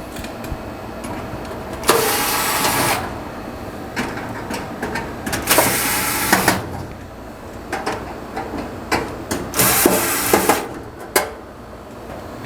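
Cordless power driver running in three bursts of about a second each, backing Phillips head screws out of a dryer's heating element mounting, with small clicks and knocks in between.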